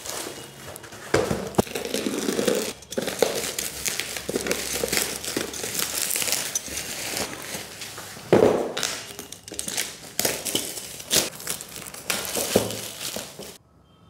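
Plastic and bubble-wrap packaging rustling and crackling as a boxed product is pulled out of it and out of a cardboard box, with a few thumps of the box being handled, the loudest a little past halfway.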